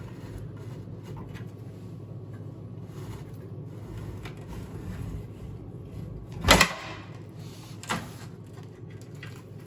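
Sub-Zero refrigerator's machinery tray being slid out of its compartment: a steady low sliding noise, with one sharp knock about six and a half seconds in and a lighter knock near eight seconds.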